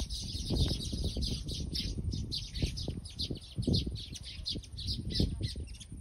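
A colony of baya weavers chattering: a dense, unbroken stream of short, high chirps from many birds. Low rumble runs underneath, with a few dull thuds.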